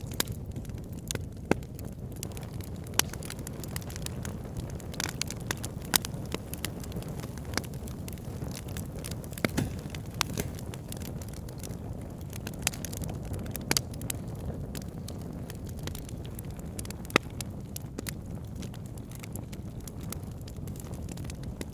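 Wood fire burning in a fireplace: a steady low rumble of flames with irregular crackles and occasional louder sharp pops.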